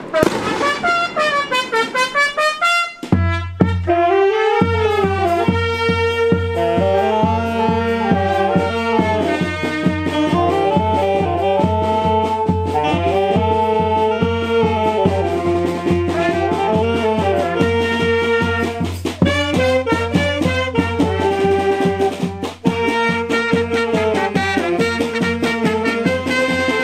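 Charanga street band of brass, saxophones and drums playing a lively tune as it marches. The melody opens alone, and a steady drum beat comes in about three seconds in.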